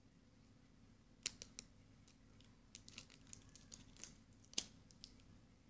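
Sharp plastic clicks and ticks as a pink plastic surprise egg is handled and picked at with scissors. Three quick clicks about a second in, a rapid run of them around the middle, and one louder click near the end.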